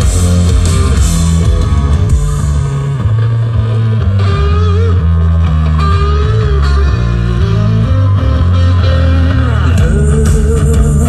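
Instrumental rock music played loud through a JBL DN LYNX loudspeaker system: a guitar line with bending, sliding notes over heavy bass.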